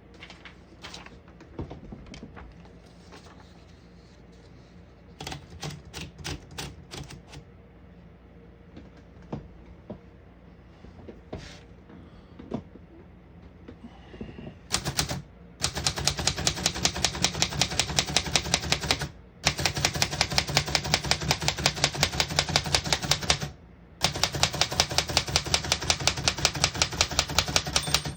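A 1934 Remington Portable Model 5 manual typewriter being typed on, its typebars striking the platen. Scattered, hesitant keystrokes come first, then about halfway through a fast, even run of strikes at about six a second, broken twice by short pauses.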